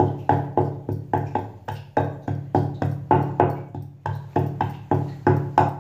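Green cardamom being pounded with the end of a wooden rolling pin on a wooden board: a steady run of wooden knocks, about four a second, each with a ringing tone.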